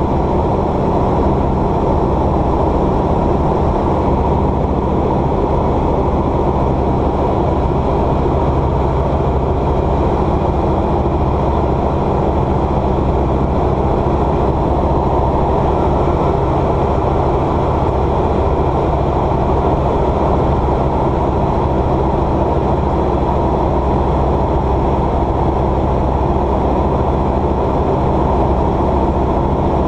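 Light aircraft's piston engine and propeller droning steadily inside the cabin, a constant low hum with no change in pitch.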